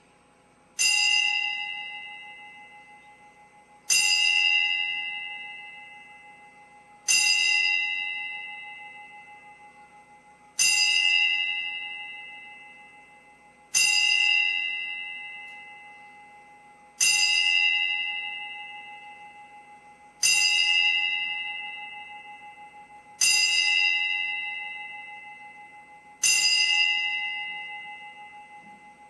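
A bell struck nine times at an even pace, about one stroke every three seconds. Each stroke rings out with a clear pitch and bright overtones, then fades away.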